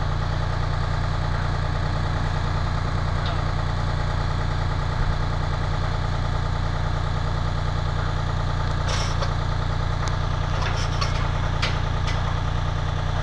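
Engine of the construction lifting machinery running steadily at a constant speed, a low even hum, with a few light clicks about nine seconds in and again near the end.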